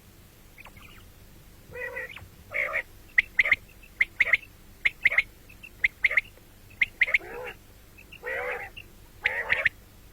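Common quail calling over and over: short, sharp notes in quick pairs and threes, mixed with longer, rasping calls.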